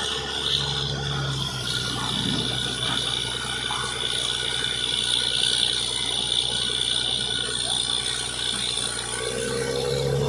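Truck-mounted borewell drilling rig running steadily, with a constant high whine over its engine, as air-blown water and slurry gush out of the borehole. A low engine hum drops away about a second and a half in and comes back near the end.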